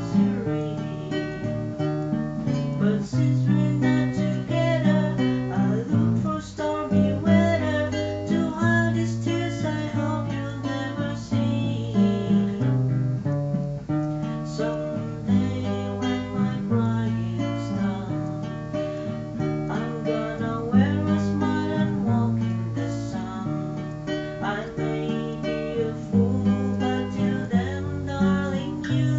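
Solo acoustic guitar played by hand: plucked and strummed chords over a bass line whose notes change every second or two.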